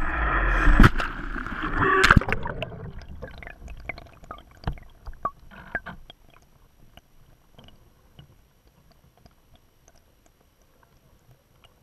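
RC Catalina PBY seaplane crashing into a lake after a motor failure: two hard splashes in the first two seconds, then gurgling and bubbling as the plane goes under, fading out within a few seconds. Heard from inside the onboard camera's waterproof housing as it sinks.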